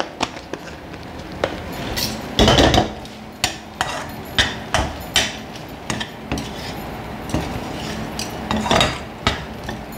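Slotted stainless-steel spatula stirring and scraping a thick, nearly dry wheat rava sweet around a stainless-steel kadai: repeated irregular scrapes and clinks of metal on metal, the loudest scrape about two and a half seconds in.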